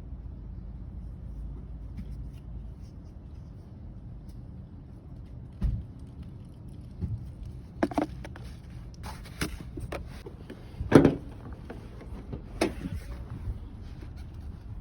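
Scattered knocks and clicks of hands handling objects, the loudest about eleven seconds in, over a low steady rumble.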